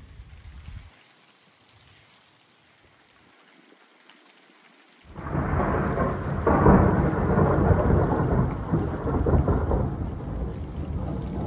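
Thunder. A low rumble dies away about a second in, then after a quiet stretch a sudden loud thunderclap breaks about five seconds in and rolls on as a long rumble.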